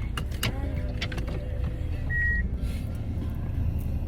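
A road vehicle's steady low rumble while riding, with scattered light clicks and rattles, and a single short high beep just over two seconds in.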